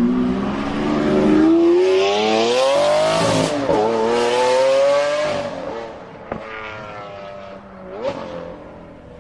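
Lamborghini engine accelerating hard, its pitch climbing for about three seconds, dipping briefly at a gear change, then climbing again before backing off around five seconds. It then runs quieter, with a short blip of revs near the end.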